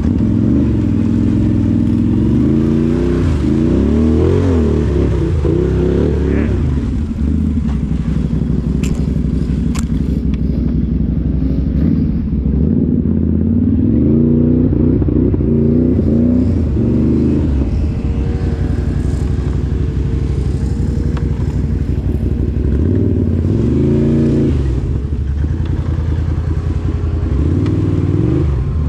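1000cc Can-Am off-road vehicle's engine running under load on a trail, the revs rising and falling again and again as the throttle is worked, with some clatter and knocks from the machine bouncing over rough ground.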